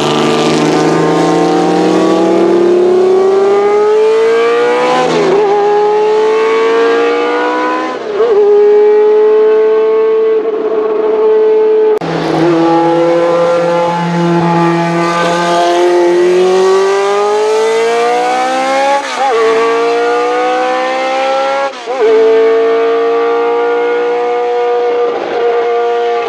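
Racing car engines running at high revs on track. The note climbs and then drops sharply at each upshift, about four times, with an abrupt change in the sound near the middle.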